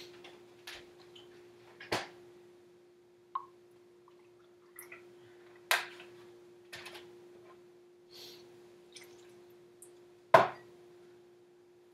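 Scattered kitchen clatter of utensils and dishes, a handful of sharp clicks and knocks, the loudest about ten seconds in, over a faint steady hum, heard over a video call.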